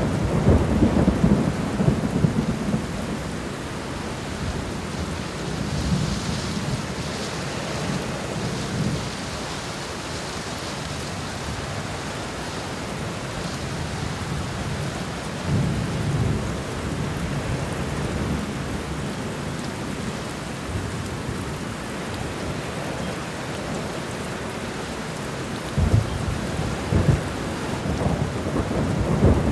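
Thunderstorm: steady rain falling, with rolls of thunder rumbling several times, and a sharper thunderclap near the end.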